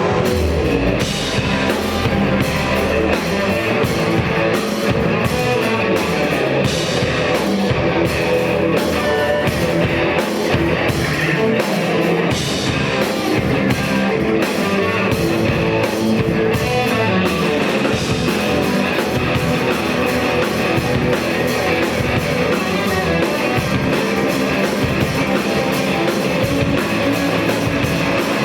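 Rock band playing an instrumental passage: electric guitar over a drum kit, with cymbals and drums driving hard from the start.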